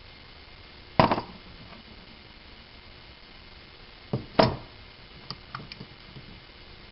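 Heavy metal gas-pump parts being handled and set down: a loud knock about a second in, two more knocks around four seconds in, then a few light clicks.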